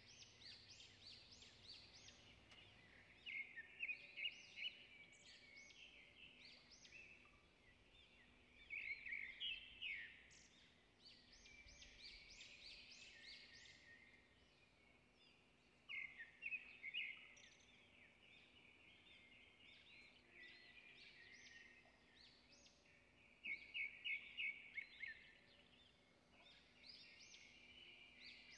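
Small bird chirping quietly: quick runs of high chirps come about every six to seven seconds, with scattered single chirps between them.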